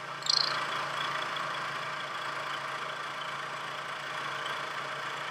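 Bridgeport milling machine spindle running with an end mill taking a 0.050-inch side cut as the Y-axis power feed drives the table, a steady mechanical hum of spindle, cutter and feed motor. A short high-pitched squeal comes about a third of a second in.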